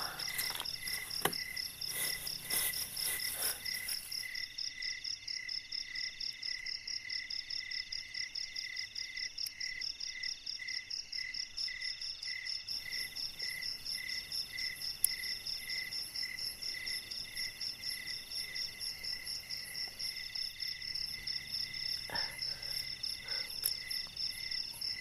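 A night chorus of crickets and other insects chirping in rapid, even pulses at several pitches at once, some in a steady trill and others in repeated bursts about a second long. A few soft knocks and rustles of handling come through in the first few seconds and once again later on.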